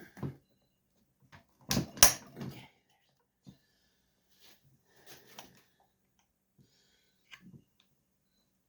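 Scattered clicks and knocks of hand tools and chainsaw parts being handled during a teardown, the loudest a close pair of knocks about two seconds in, with lighter clicks around five seconds and again near the end.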